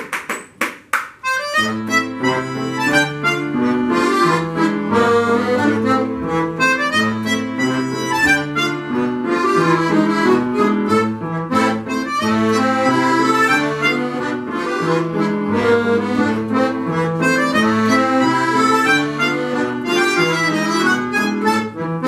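Ensemble of bayans and accordions with violin and piano playing a lively quadrille over a steady bass line. The music sets in about a second and a half in, after a few sharp taps.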